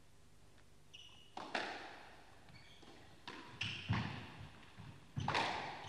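Squash rally: the ball smacking off rackets and the court walls, sharp echoing hits coming a second or two apart, with short squeaks of court shoes on the floor.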